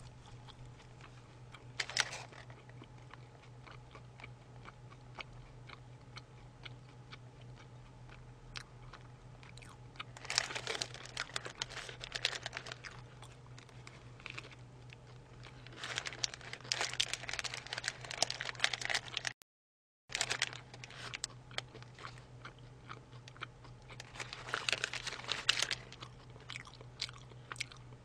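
Close-miked chewing and crunching of a chicken burger, in three bouts of a few seconds each with quieter stretches between, over a steady low hum. The sound drops out completely for about half a second roughly two-thirds through.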